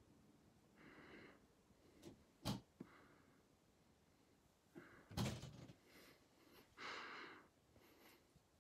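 Quiet handling noise as a hand plays with a cat on a fabric couch: a few soft breathy rustles and two short sharp taps, the second the loudest, near the middle.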